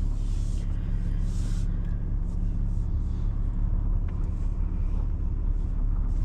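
Pickup truck running, a steady low engine rumble with road or cabin noise, heard from inside the cab.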